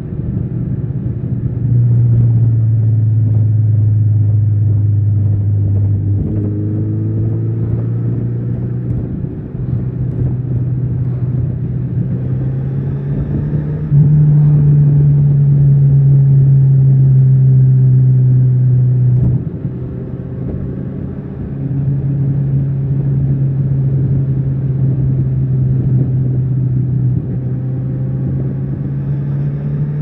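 Kawasaki Z900RS inline-four engine and exhaust heard while riding, a steady drone whose pitch and loudness step up and down with throttle and gear changes. It gets louder and higher about halfway through, then backs off for about two seconds before pulling again.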